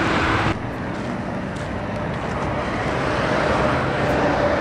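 Steady road traffic noise: engines and tyres of passing vehicles.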